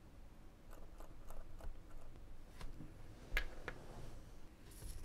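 Steel tweezers clicking against a tiny watch movement and its holder: a run of faint ticks, then a few sharper clicks with the loudest about three and a half seconds in, and a brief rustle near the end.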